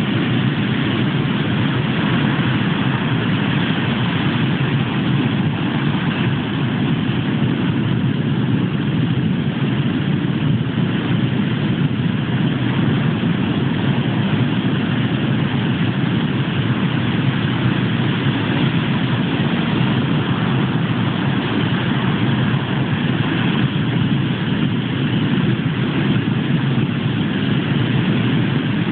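Ocean surf breaking on a sandy beach: a steady, continuous roar.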